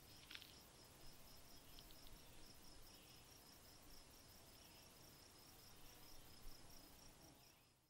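Near silence with faint insect chirping: a soft, high, evenly pulsed trill of about four chirps a second over low background hiss, cutting off near the end.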